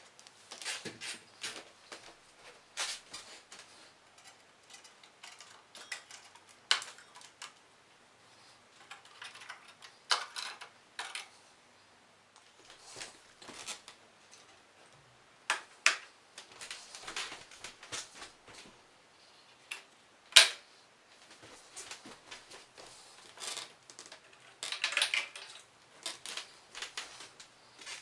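Irregular clicks, knocks and light rattling of hard computer parts being handled inside an opened workstation case, with one sharp click standing out about two-thirds of the way through.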